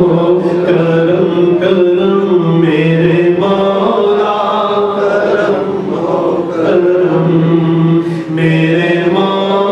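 A man's solo voice reciting an Urdu naat (devotional kalaam) in long, held melodic phrases that glide from note to note.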